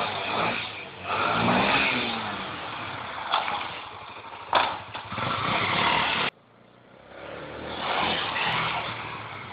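Honda XR 250 Tornado single-cylinder four-stroke trail bike engine revving under riding, its loudness rising and falling with the throttle. It cuts off abruptly a little past six seconds, then another pass swells up near eight seconds and fades away.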